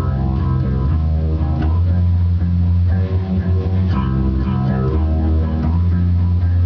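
Loud, doomy guitar and bass music: heavy held low notes that change every second or so.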